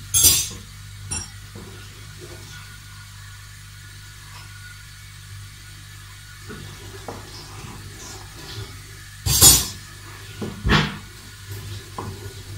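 Dishes and utensils clattering as they are handled on a kitchen counter: a sharp clink just after the start and two louder clatters near the end, with a few faint clicks between, over a low steady hum.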